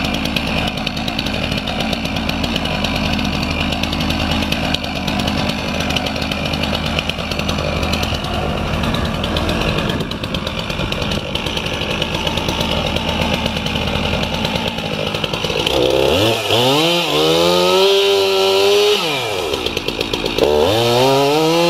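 A gas chainsaw runs at a steady idle, then about three-quarters of the way through it is revved into the trunk of a poplar. Its pitch sags under load and climbs again, twice, as it cuts the felling notch.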